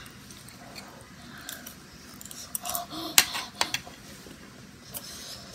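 A metal fork and spoon click and scrape against a plate while scooping rice. The clicks are scattered, and the sharpest come in a quick cluster a little after three seconds in.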